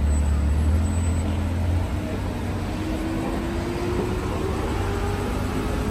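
A car's engine running with a deep low rumble that drops away about two seconds in, then a faint tone that rises slowly, over busy street noise.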